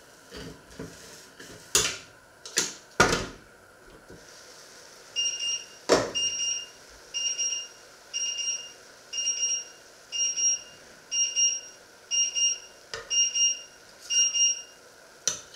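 Metal cookware clattering and knocking, a steel pot and its lid set down on a wooden board, then an electronic alarm beeping in quick repeated bursts, about two a second, for roughly ten seconds.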